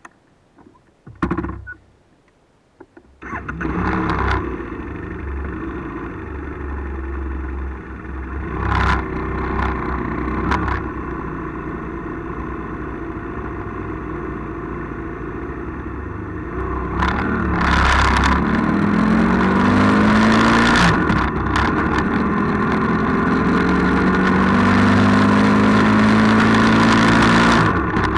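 A vehicle engine running at road speed with wind and road noise, starting abruptly about three seconds in after a few faint knocks. It grows louder about halfway through, and its pitch rises twice as it accelerates.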